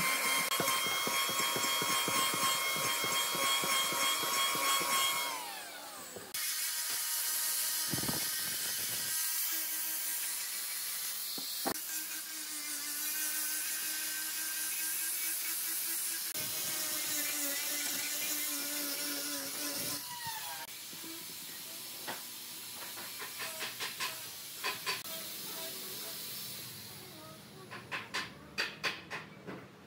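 Electric hand planer running on a round log, then winding down about five seconds in. An angle grinder then grinds the wood with a steady hiss until about two-thirds through. Scattered knocks follow, with a quick run of clicks near the end.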